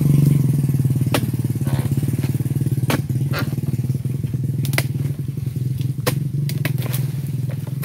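A small engine running steadily with a low, even drone. Over it, several sharp knocks as a pole-mounted oil palm chisel (dodos) strikes the palm's frond stalks.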